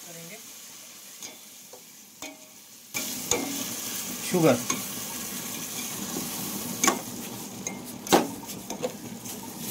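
Spatula stirring vermicelli in a bubbling milk mixture in a stainless steel pot on the stove, with sizzling and a few sharp knocks of the spatula against the pot, the clearest two near the end. The hiss becomes louder about three seconds in.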